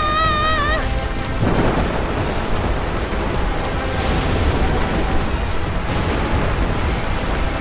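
Storm sound effects: a continuous rumble of thunder with rain-like noise and a heavy low roar, over background music. A held, wavering tone cuts off under a second in.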